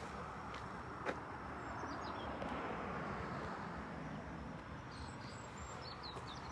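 Steady outdoor background noise, swelling a little in the middle, with a single sharp tick about a second in and a few faint high chirps.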